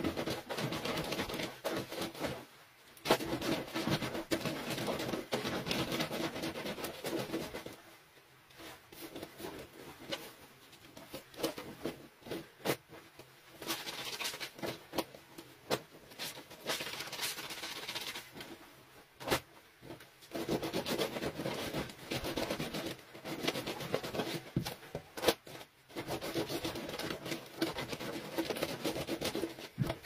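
Soapy clothing scrubbed by hand against the ridged washboard of a concrete laundry sink: wet rubbing and squishing in stretches, with quieter pauses in between.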